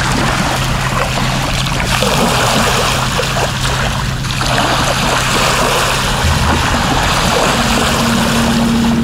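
Tohatsu M 9.8 two-stroke outboard running, with water rushing and splashing along the inflatable PVC boat's hull. The engine note changes about two-thirds of the way through.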